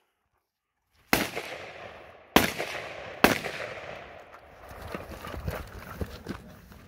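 Three rifle shots from an AR-15-style carbine, about a second apart starting about a second in, each with a long echoing tail, followed by quieter scattered knocks and clatter.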